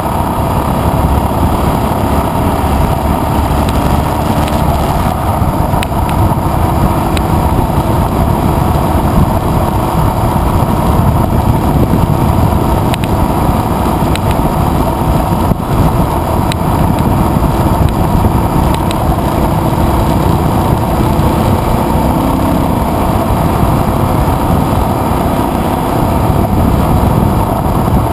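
Adventure motorcycle engine running steadily at cruising speed on a gravel road, mixed with wind rush on the microphone and tyre noise on the gravel.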